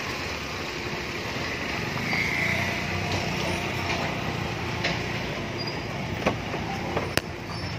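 Vehicle engines idling with a steady low rumble, and two sharp clicks near the end.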